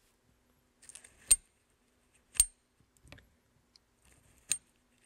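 Pawls of an old manual sailboat winch clicking as its drum is turned slowly by hand: three sharp clicks about a second apart, with a fainter one between. Each is a single clean click because all the pawls fall at the same time, the sign of a winch in good working condition.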